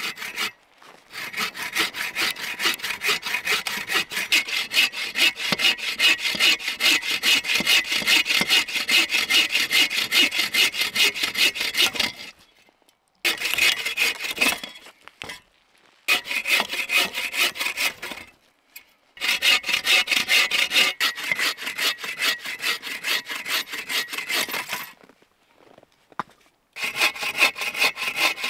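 Bow saw cutting through a dry dead log in steady back-and-forth strokes, about two a second. The sawing comes in several runs, stopping briefly four times.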